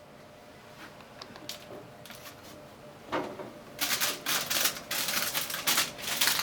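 Crinkling, crackly rustle of plastic packaging being handled, starting about three seconds in and growing dense about a second later, as a pack of baby plum tomatoes is taken out.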